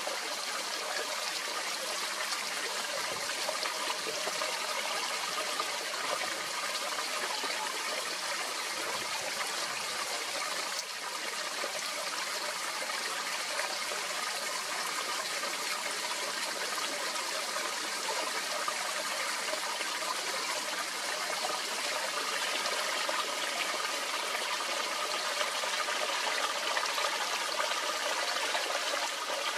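Shallow mountain stream trickling steadily over stones, its flow low from drought.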